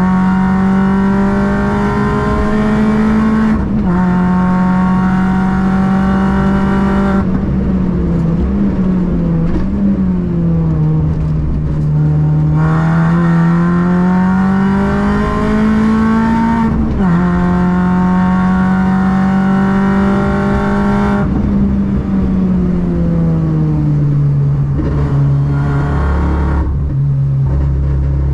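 Car engine driven hard on a race circuit, its pitch climbing steadily under acceleration and dropping sharply at each gear change, with stretches where the revs fall away as it slows for corners.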